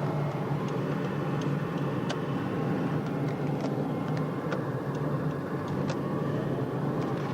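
Car driving: a steady low rumble of engine and road noise, with a few faint sharp clicks scattered through it.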